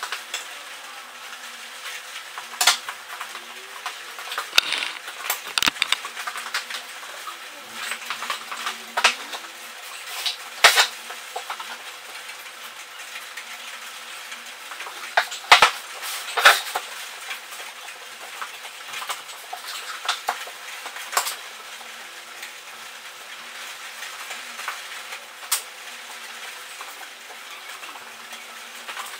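Irregular knocks, clicks and clatter of tools and MDF boards being handled, over a faint steady hum.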